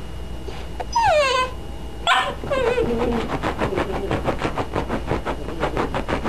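A dog whining: a falling whine about a second in, a sharper cry at about two seconds, then a wavering, rapidly pulsing whine to the end.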